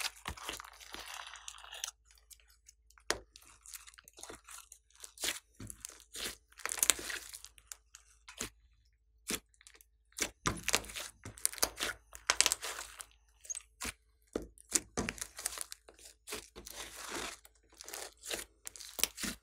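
Hands squeezing, stretching and kneading a large lump of glossy slime: irregular sticky squelches and crackling pops, coming in clusters with short pauses between them.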